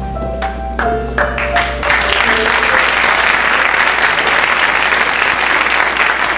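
Stage-show music ends on its last few notes, with some sharp percussion hits, and about two seconds in a theatre audience breaks into applause and keeps clapping.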